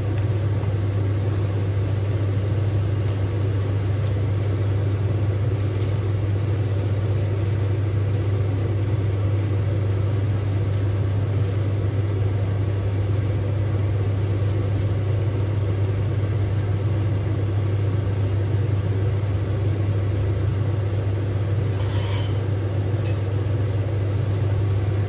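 Steady low electric hum of a running kitchen appliance, such as a cooktop or extractor fan, held at one pitch. About 22 seconds in comes a short sharp tap or scrape.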